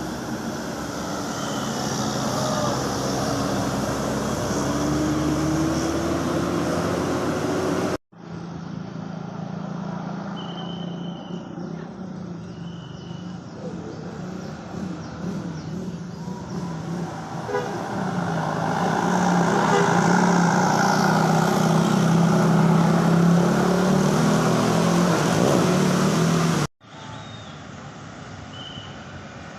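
Buses sounding telolet basuri multi-tone musical horns over engine and traffic noise. The horn is loudest late in the middle clip. The sound breaks off abruptly twice at cuts between clips.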